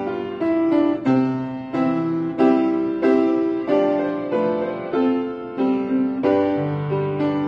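Piano being played: a steady, unhurried piece of chords and melody notes, a new one struck about every two-thirds of a second, each ringing and fading before the next.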